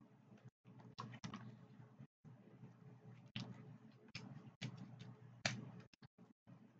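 Faint, scattered cracks and clicks of snow crab leg shells being snapped by hand and snipped with kitchen scissors.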